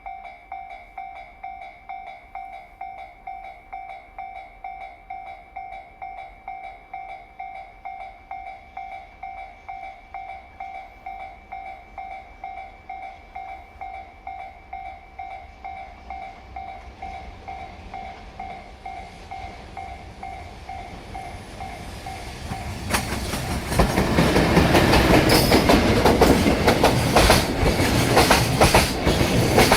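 A Japanese level crossing's electronic warning bell rings in a quick steady pulse. About three quarters of the way through, a JR Freight container train led by an EF210 electric locomotive passes close by, loud, its wheels clattering hard over the rail joints.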